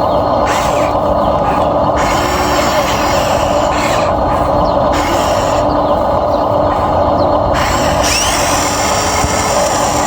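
Small electric motors and plastic gearboxes of a Huina RC excavator whirring steadily as it works, the pitch and brightness shifting every second or two as its functions start and stop.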